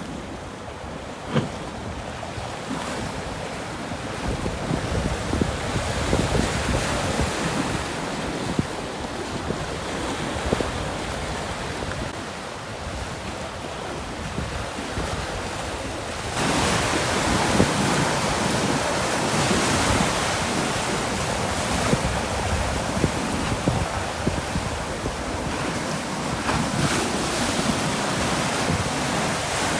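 Pacific Ocean surf washing against the rocky shore, with wind buffeting the microphone. The surf becomes louder a little past halfway through.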